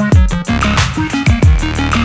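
Electronic background music with a fast, heavy beat, deep bass notes that drop in pitch, and synth lines.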